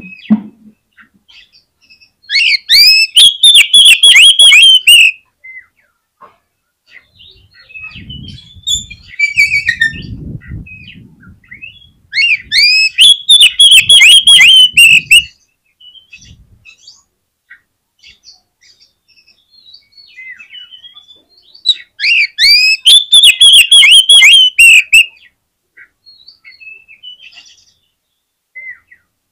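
Oriental magpie-robin (kacer) in full song (gacor). It sings three loud bursts of about three seconds each, made of rapid, repeated ringing notes, with softer chirps between them. A low rumble sounds near the middle.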